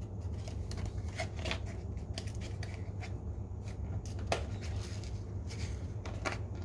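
Cardboard carton and boxed packaging being handled: scattered rustles, scrapes and light knocks, with one sharper knock about four seconds in. A steady low hum runs underneath.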